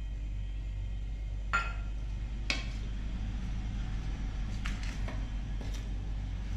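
Steel spoon stirring besan into grated corn and chopped onion in a stainless steel bowl, with a few sharp clinks of spoon against bowl, the loudest about two and a half seconds in, over a steady low hum.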